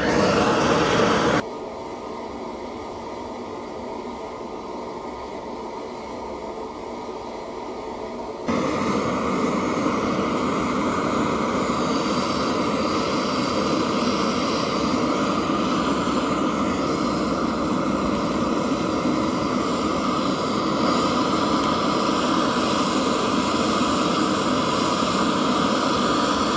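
Handheld gas blowtorch burning with a steady rushing flame, played into a hollowed potato to melt gold. The sound drops quieter about a second in and comes back to full strength around eight seconds in.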